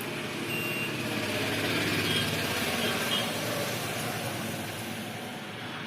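Motor-vehicle noise swells and fades, peaking about two seconds in, as a vehicle passes. A few faint short beeps from a multimeter's continuity buzzer sound near the start and around two and three seconds in.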